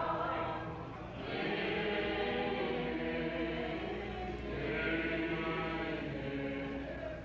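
A group of voices singing a slow song together in long held notes, rising in two long swells with a brief dip about a second in.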